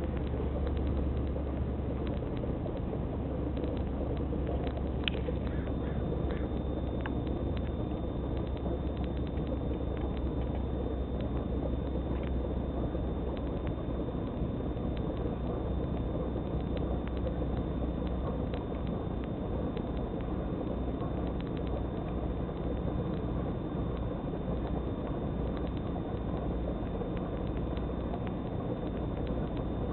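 Steady low rumble of a distant steam locomotive hauling a passenger train past, with no separate exhaust beats. A few faint clicks come about five to seven seconds in.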